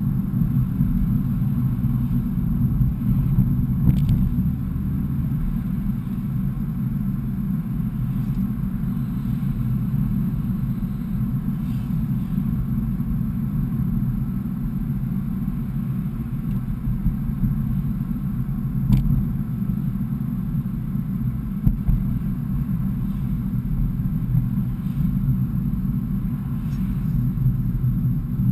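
Steady low rumble of engine and road noise inside a car's cabin while driving, with a couple of brief faint clicks or rattles.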